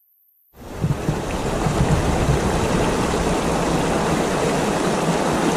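Rushing water from a river waterfall, a loud, steady roar that starts abruptly about half a second in after a moment of near silence.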